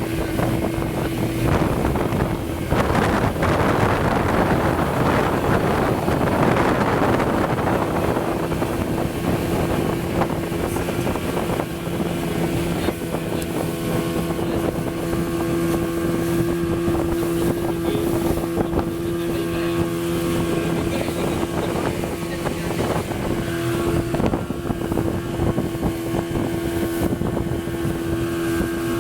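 A motorboat's engine running steadily with an even hum, with wind and water rushing, loudest a few seconds in.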